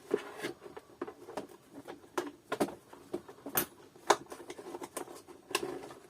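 Irregular clicks, taps and light knocks of plastic vacuum-cleaner housing parts and screws being handled during disassembly, with no motor running.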